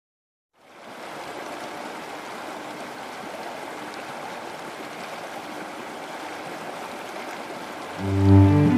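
Steady rush of a fast mountain river over rocks, fading in after a brief silence. About eight seconds in, louder music with deep notes comes in over it.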